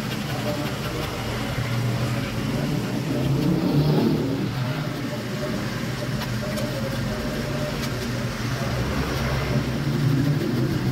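An engine running steadily at a constant speed, a low even hum with no change in pace.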